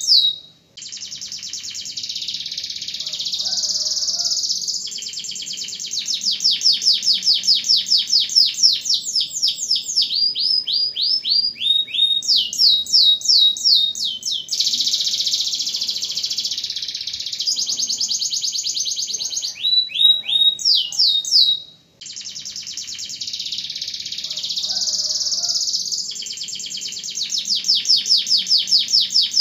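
Domestic canary singing a long, near-continuous song of rapid trills and rolls, with runs of falling whistled notes between phrases. The song breaks off briefly twice, just after the start and about three-quarters of the way through.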